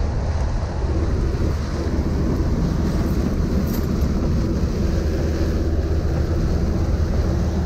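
Inside the cab of a 1972 Jeep Wagoneer on the move: steady engine and road noise with wind.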